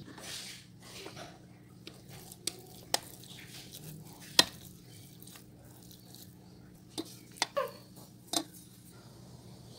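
Plastic rice paddle stirring cooked rice in a rice cooker's metal inner pot, scraping and knocking against the pot in a handful of sharp knocks, the loudest about four and a half seconds in.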